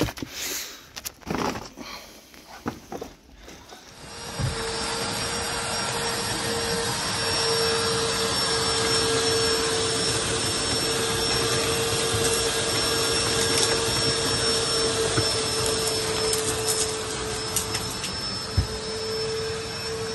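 Pond vacuum running, its wand sucking sludge and water off the pond floor through a hose: a steady motor hum under a rushing hiss, coming in about four seconds in after some soft rustling.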